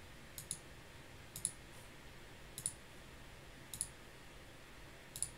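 Computer mouse clicking, five faint separate clicks about once a second, each a quick double tick of press and release, over low room hiss.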